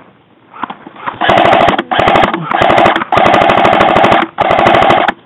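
Airsoft electric gun firing on full auto close by: five loud bursts of rapid, evenly spaced shots over the whir of its gearbox, one burst lasting about a second.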